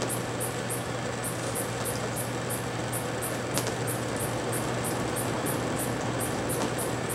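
Outdoor evening ambience: a steady wash of noise with a low hum beneath, and a high-pitched chirp pulsing evenly about four times a second.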